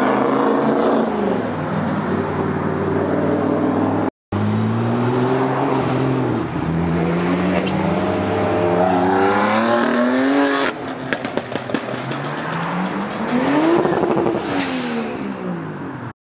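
Sports car engines accelerating hard away, revving up through the gears in several pulls, with a burst of sharp crackles about eleven seconds in and one more rise and fall in engine pitch near the end.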